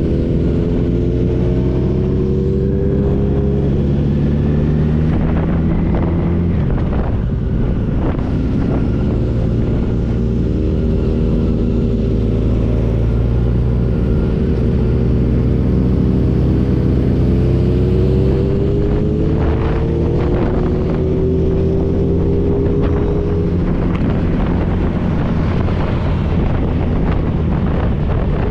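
Motorcycle engine running under way, its pitch rising and falling with throttle and gear changes. Wind buffets the microphone in places.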